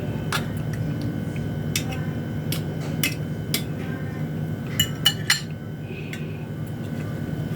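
Metal cutlery clinking against dishware during a meal: a handful of sharp, separate clinks, with a cluster of three about five seconds in, over a steady low hum.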